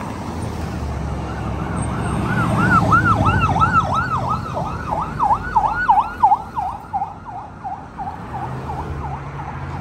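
Police escort vehicle's siren in a fast yelp, about three to four rises and falls a second. It grows loud as it passes and fades away over the last few seconds, over the rumble of SUVs driving past close by.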